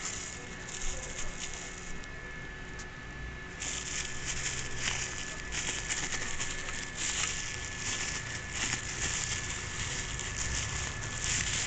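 Clear plastic wrapping around a small computer speaker crinkling and crackling as it is handled and unwrapped. The crackling gets busier and louder about three and a half seconds in.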